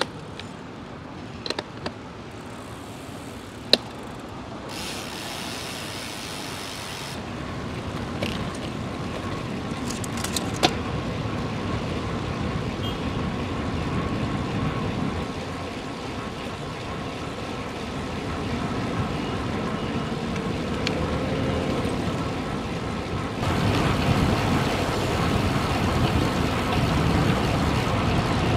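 Road traffic noise: a steady rush of passing motor vehicles that slowly grows louder and steps up near the end, with a few sharp clicks in the first few seconds and another about ten seconds in.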